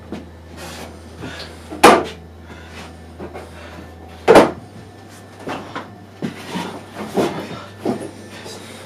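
Someone rummaging among tools and objects on a wooden workbench: a series of knocks and clatters as things are picked up and set down, the two loudest about two and four and a half seconds in.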